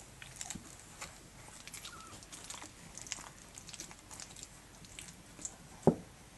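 Puppy moving on carpet and mouthing a rope toy: scattered small clicks, ticks and scratches, with one sharp knock near the end.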